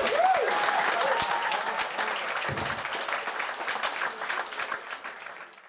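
Audience applauding, with a few cheering voices at the start; the applause fades out near the end.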